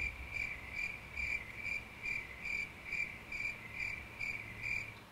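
A cricket chirping steadily, about two and a half short chirps a second.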